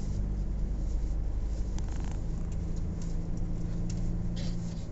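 A moving vehicle's engine and road noise: a steady low drone, with a few light clicks or rattles about two seconds in and again near the end.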